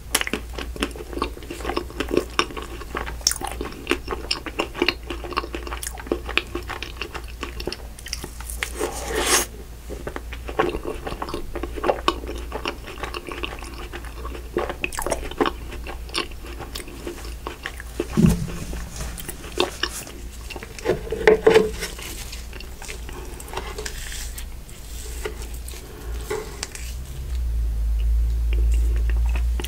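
Close-miked eating of cookie-studded creme brulee ice cream: biting, wet chewing and crunching mouth sounds with many small clicks. Near the end a low rumble sets in as a fork digs into the ice cream block.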